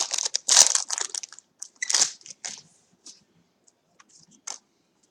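Crinkling and rustling of trading-card packaging and cards being handled, in a few short bursts with the loudest two in the first half.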